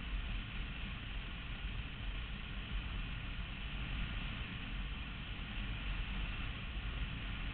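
Motorcycle riding at a steady cruising speed: steady wind rush over the microphone with a low rumble of engine and road noise underneath.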